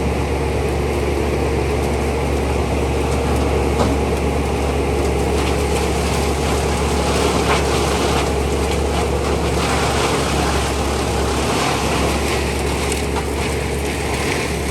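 Steady drone of heavy diesel machinery running without a break at the tree-chipping site, from the large chipper and crane.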